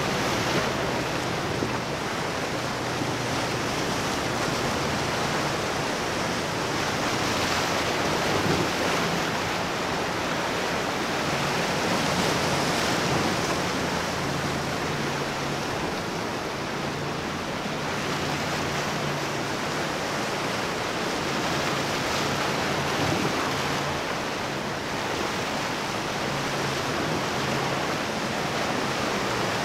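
Steady rush of breaking waves and choppy water in a rough ocean inlet, with a low hum underneath that comes and goes.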